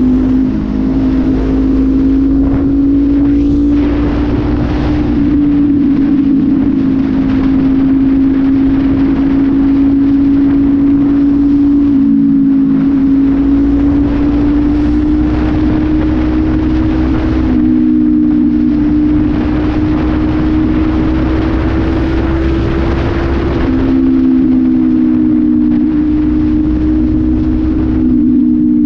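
Honda CB500F's parallel-twin engine through a Full Pro aftermarket exhaust tip, with no air filter, running at steady cruising revs on the open road. The pitch drifts only slightly up and down as the throttle is held.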